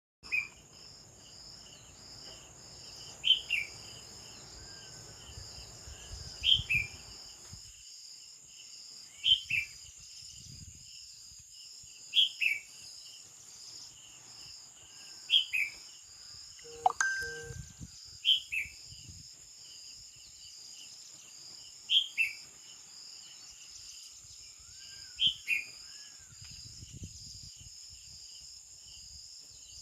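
A songbird giving a short two-note call that falls in pitch, repeated about every three seconds, over a steady high chorus of crickets.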